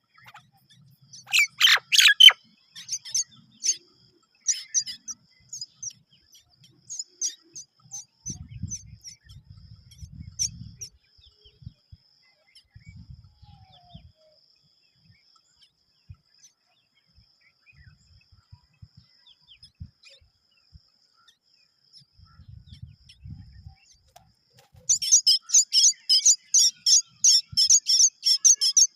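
Mynas calling: a loud burst of harsh calls about two seconds in, then scattered high chirps, and near the end a fast, loud run of repeated calls, several a second, typical of a chick begging for food.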